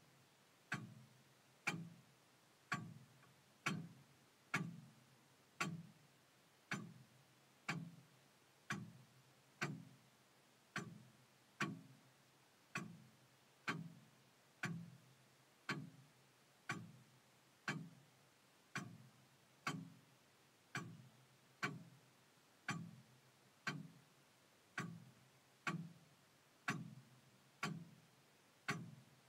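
Longcase clock ticking steadily, about one tick a second, each tick followed by a short low ring.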